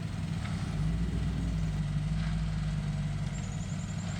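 Engine of the vehicle backing in a trailer of ready-mixed concrete, running steadily at low speed.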